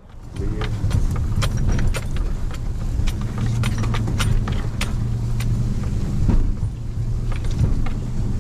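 Pickup truck running along a rough woods track, heard from inside the cab: a steady low engine and road drone with frequent small clicks and rattles.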